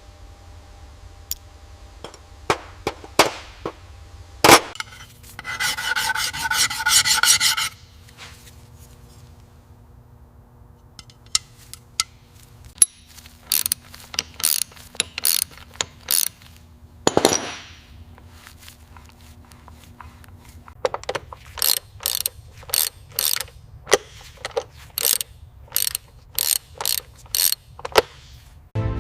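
Hand tools working on metal engine parts: a series of sharp clicks and taps, a ratcheting burst lasting about two seconds around six seconds in, a short rasping scrape around seventeen seconds, and a run of evenly spaced clicks near the end.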